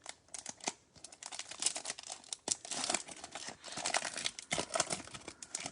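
Foil wrapper of a Bowman Chrome card pack crinkling and tearing as it is opened, a dense run of crackles for several seconds.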